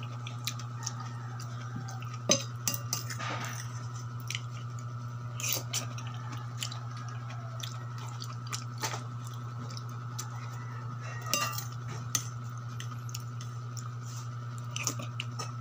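A metal spoon and fork clinking now and then against a plate, with chewing between the clinks, over a steady low hum.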